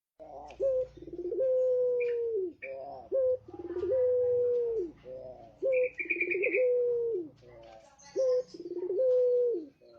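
Male puter pelung dove cooing over and over: four phrases, each a short note followed by a long, drawn-out coo that drops in pitch at its end. A brief high trill from another small bird comes about six seconds in.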